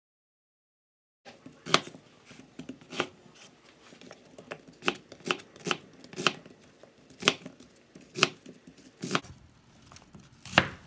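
Chef's knife slicing an onion on a plastic cutting board: a sharp tap of the blade on the board about once a second. It starts after about a second of dead silence.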